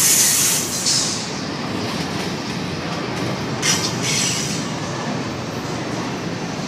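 Two freight trains rolling past at once on adjacent tracks, a string of covered grain hoppers and a double-stack intermodal train, with a steady rumble and clack of steel wheels on rail. Short high-pitched hissing bursts come through in the first second and again a little before four seconds in.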